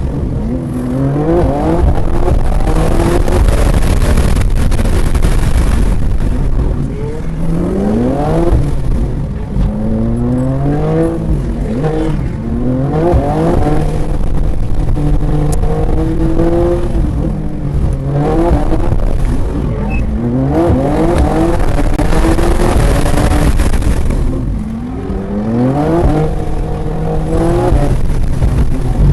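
BMW M2 (G87) twin-turbo straight-six at full throttle on track: the engine note repeatedly climbs through the revs, then drops back at gearshifts and lifts for corners.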